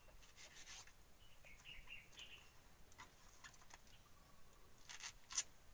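Quiet knife work: faint short clicks of a small knife cutting banana blossom over a plate, the sharpest click about five seconds in. Faint bird chirps sound about two seconds in.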